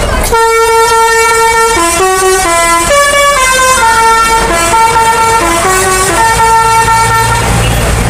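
Indonesian tour bus's telolet horn, its roof-mounted horn trumpets playing a melody: a string of held notes stepping up and down in pitch, starting just after the beginning and stopping about a second before the end.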